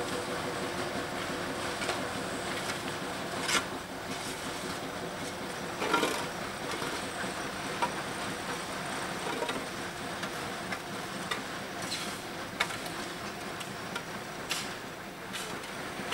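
Sharp metallic clanks and knocks at irregular intervals over a steady hiss, from work around the locomotives in a narrow-gauge railway depot, with a faint engine hum that fades over the first few seconds.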